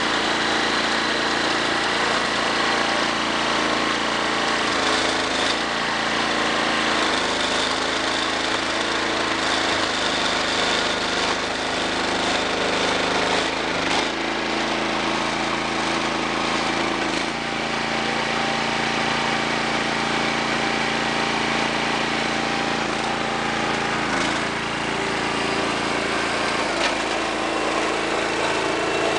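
Small engine running steadily to drive a hydraulic log splitter. Its pitch shifts a few times as the splitter works through a large log, with a brief knock about halfway through.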